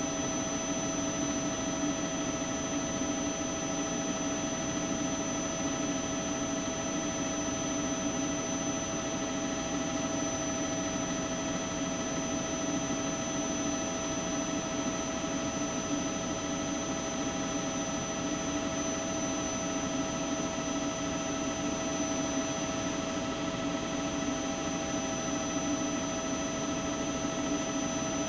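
Steady engine noise of the news helicopter carrying the camera: an even roar with several steady whining tones over it, unchanging throughout.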